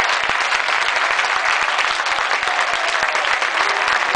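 Stadium crowd of football supporters applauding: dense, many-handed clapping mixed with cheering, with voices starting to sing again faintly near the end.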